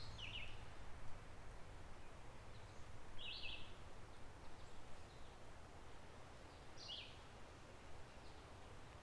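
Three short, high bird calls about three seconds apart, over the steady, faint rush of a gently flowing creek.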